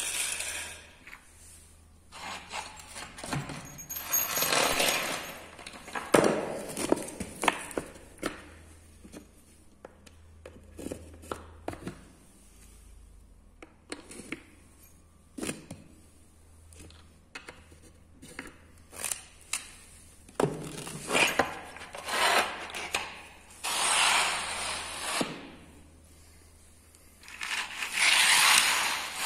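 Nail-studded wooden boards scraping, knocking and clinking on a concrete floor: several long scrapes and many sharp clicks of metal and wood.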